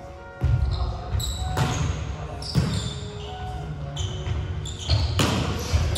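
Volleyball play in a large gym hall: a volleyball struck several times by hands and arms, sharp contacts ringing briefly in the hall. Sneakers squeak on the hardwood court between the hits.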